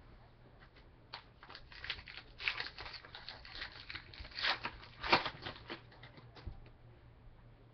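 Foil wrapper of a 2013 Topps Chrome baseball card pack being torn open and crinkled: a run of irregular crackles starting about a second in, loudest at two sharp rips past the middle.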